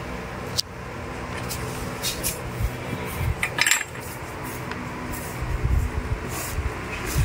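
Scattered light metal clinks and taps of a hand tool and small parts against a chainsaw, heard over a faint steady low hum.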